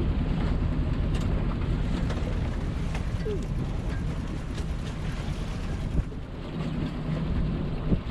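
Boat's inboard diesel engine running steadily, mixed with wind rushing over the microphone.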